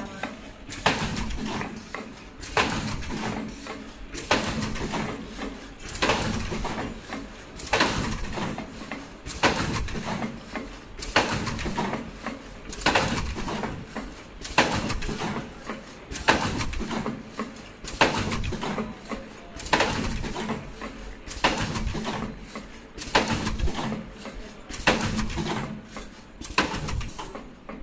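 Richpeace surgical mask production line running: a regular clack about every 1.7 seconds, with lighter clicks in between, over a steady low hum and a faint high whine.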